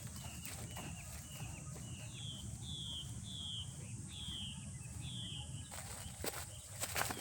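A bird calling outdoors: a run of short, downward-sliding whistled notes, about two a second, loudest in the middle and stopping about five and a half seconds in, over a steady high hiss. A few sharp clicks or knocks come near the end.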